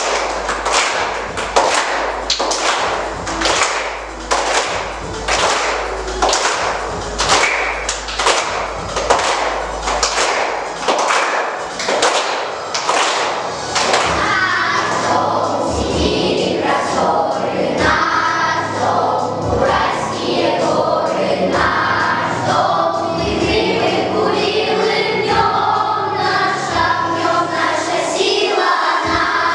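Children's choir singing a song over a backing track. The first half is an instrumental passage with a steady beat about twice a second; about halfway in the children's voices come in and sing together over the music.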